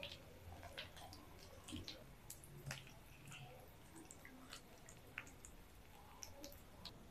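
Faint, scattered crackles and drips from a pan of hot frying oil over a wood-fired clay stove, as egg chops fry and are lifted out in a wire strainer.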